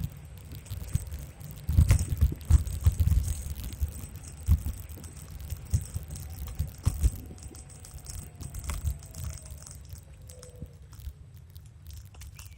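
Wind buffeting the microphone in gusts, with frequent rattles and knocks from a Xiaomi M365 electric scooter riding over a rough, wet rural road. A faint tone falls slowly in pitch in the second half.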